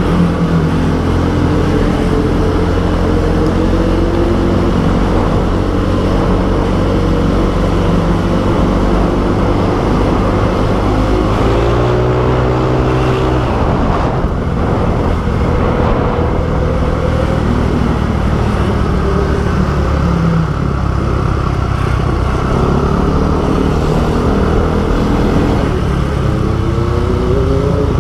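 Motorcycle engine running while riding, over steady wind and road noise. The engine note climbs about midway, breaks off sharply, and climbs again twice near the end, as the throttle is opened and shut.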